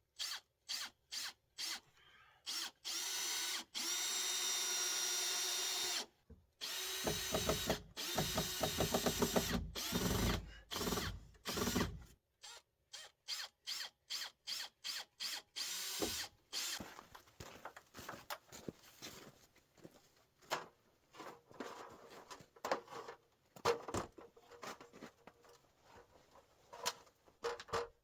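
Power drill run in several short bursts, then held on a steady whine for a few seconds. It then runs louder and pulsing for about five seconds, as when driving a fastener under load. After that come scattered clicks and knocks of tools and material being handled.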